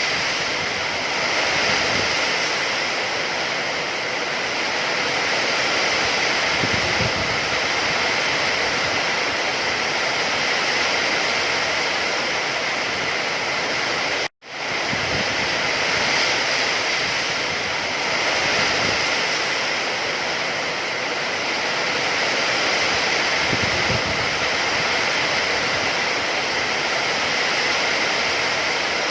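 Steady hiss of heavy rain. It cuts out abruptly for a split second about halfway through, then resumes.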